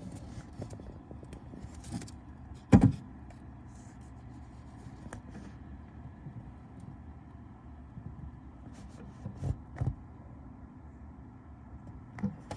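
White's tree frog giving short squeaks as it snaps at food, a sound likened to a squeezed rubber duck toy. One loud squeak comes about three seconds in and two quicker ones a few seconds before the end, among faint clicks and rustling.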